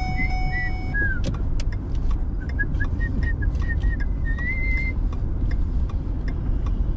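Low steady rumble of a car rolling slowly, heard from inside the cabin, with scattered light clicks. A short run of high chirping or whistled notes comes in the middle, ending on a longer rising note, after music stops about a second in.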